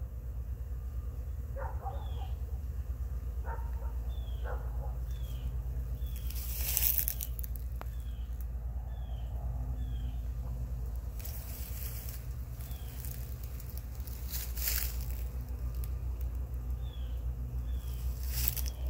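Outdoor ambience: a steady low rumble, with a short high two-note chirp repeating about every four seconds and a few brief rustles.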